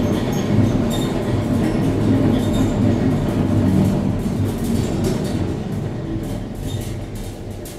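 Montmartre funicular cabin running on its rails, heard from inside the car: a steady low rumble with a hum and scattered clicks, dying away over the last couple of seconds as the car slows into the lower station.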